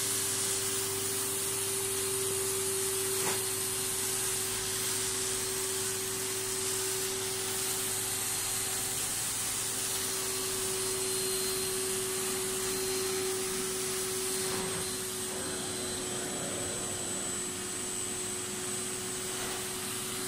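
Carpet extractor running under steady suction as its cleaning wand is drawn across the carpet: a constant motor whine over a hiss of air and water being pulled up through the wand.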